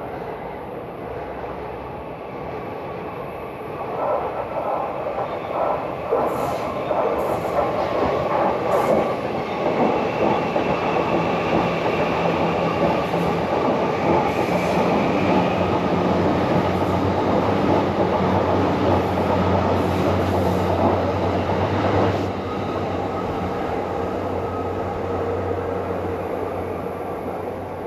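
A train passing close by. It swells up about four seconds in and runs loud with a steady low hum and a few sharp clicks, then drops suddenly about 22 seconds in. Heard through a GoPro HERO 13 Black's microphone with a windscreen.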